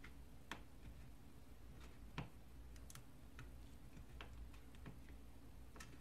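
Faint, scattered small plastic clicks and ticks as fingers work a wire connector loose from the Nvidia Shield Pro's circuit board. The clearest click comes about two seconds in.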